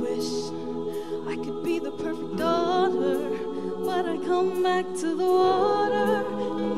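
A choir singing held chords while a female soloist sings a wavering melody over them into a microphone.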